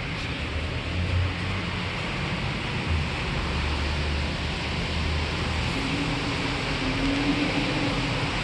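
Old 1977 Fujitec lift's machinery running: a steady low hum under a constant hiss, joined by a higher steady whine from about six seconds in.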